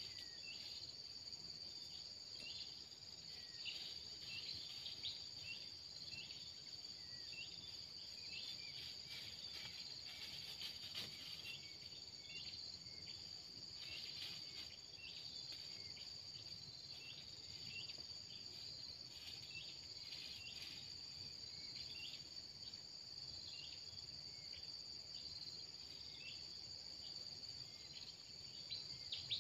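Faint, steady high-pitched drone of insects, with scattered short high chirps over it.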